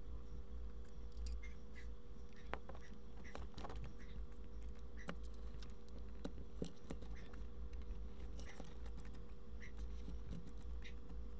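Mangrove monitor eating chicken gizzards from a plastic bowl: scattered, irregular wet clicks and taps of its jaws working the meat and its claws on the bowl. A steady low hum runs underneath.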